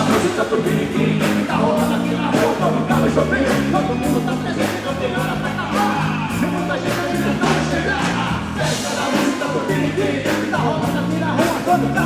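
Live band music with a steady drum beat and a repeating bass line, with some singing over it.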